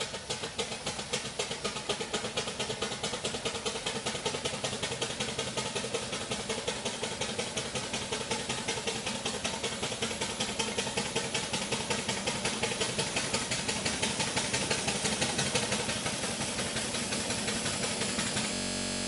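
4-inch scale Fowler live-steam traction engine on the road, its exhaust beating up the chimney in a fast, even chuff that grows louder as it approaches.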